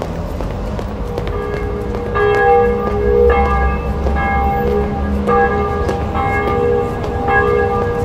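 Church bells ringing, struck roughly once a second with long overlapping ringing tones, over a low street rumble.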